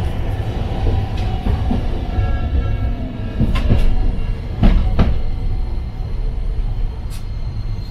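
Toden Arakawa Line tram running along the track, heard from inside the car: a steady low rumble with a few sharp clacks of the wheels now and then and a faint whine.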